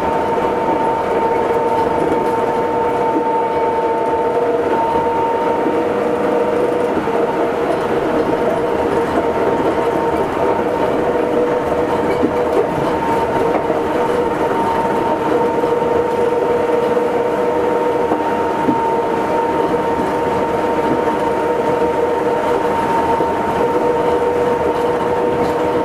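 Cabin running sound of an Astram Line 7000 series rubber-tyred automated guideway train moving at steady speed: an even rolling rumble with a constant high whine over it.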